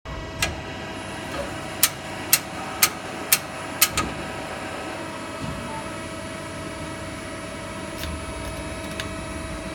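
CNC lathe running with a steady hum and a held whine. Near the start comes one sharp click, then a quick run of five sharp clicks about half a second apart.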